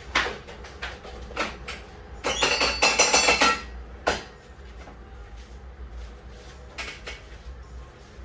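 Scattered clicks and knocks, with a dense clatter of hard objects with a metallic ring about two to three and a half seconds in.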